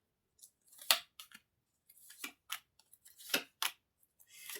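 Tarot cards being handled and laid out: a string of short, irregular papery snaps and slides, the loudest about a second in and again a little after three seconds.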